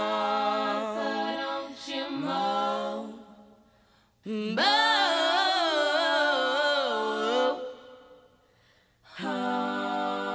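A cappella singing in three phrases, with a short near-silent pause between each; the last phrase holds a long steady note.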